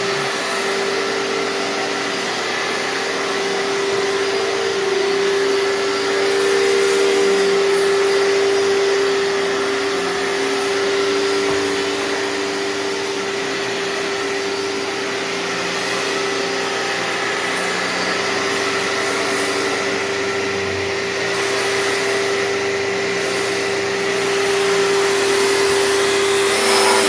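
2003 Hoover TurboPower 5000 canister vacuum running loud and steady, with a constant motor whine over the rush of air. Its level rises and falls slightly.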